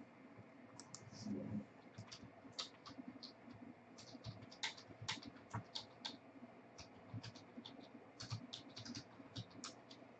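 Faint, irregular light clicks and ticks, a few a second at times, with a soft low thud about a second in.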